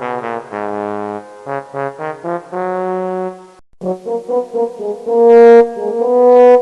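Brass tune played as a sound effect: a run of short pitched notes, a brief break just past the middle, then more notes with one loud held note near the end.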